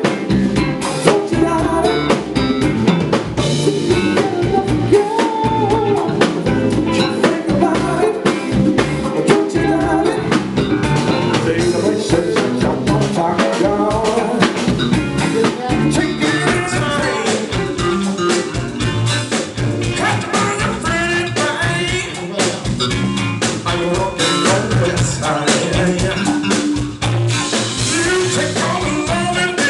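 A band playing a song with a drum kit and a lead singer, music sounding through the whole stretch.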